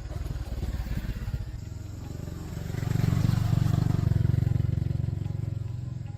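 An engine running with a rapid low pulsing, growing louder about halfway through and then easing off.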